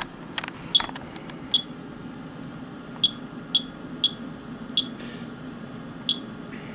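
Monitor 4 Geiger counter chirping at random intervals, about eight short high beeps, one per detected count. This is a rate of 50 to 100 counts a minute from a rain sample, over twice background. A faint steady low hum runs underneath.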